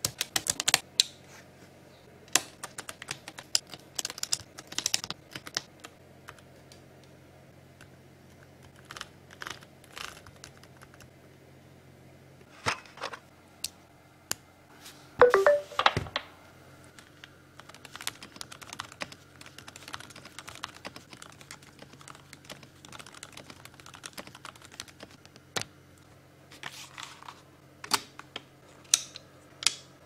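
Scattered clicks and clacks from an aluminum mechanical keyboard as purple switches are pressed into its plate and its keys are pressed. A louder, quick run of clacks comes about halfway through.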